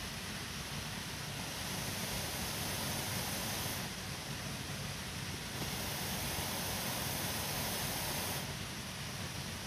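A steady hiss, with no distinct events.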